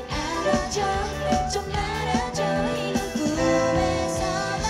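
Live pop-rock band music: a female voice singing over keyboard chords and steady drums.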